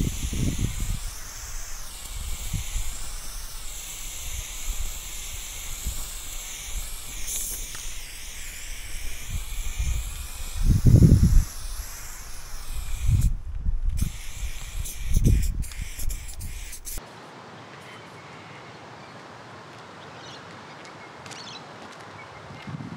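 Aerosol spray-paint can hissing in long sprays with short breaks, under low rumbles of wind on the microphone. About seventeen seconds in, the spraying and rumble stop abruptly, leaving only a faint hiss.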